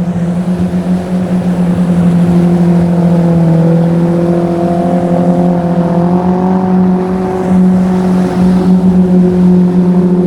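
Motorboat engine running with a steady drone, its pitch drifting slightly, growing louder about two seconds in as the boat passes close.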